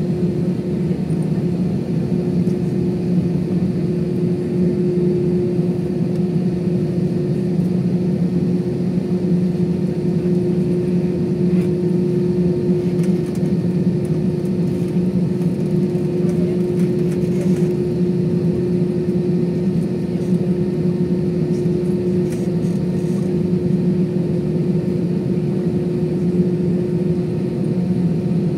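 Jet airliner engines at low power as the plane taxis, heard inside the passenger cabin: a steady, even hum with a constant droning tone that neither rises nor falls.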